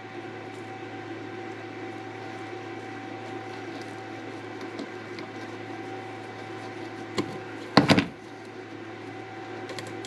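Steady background hum with a faint steady tone. About seven seconds in comes a single click, then a moment later a quick cluster of louder sharp clicks as pliers twist and snap a small SMD electrolytic capacitor off a circuit board.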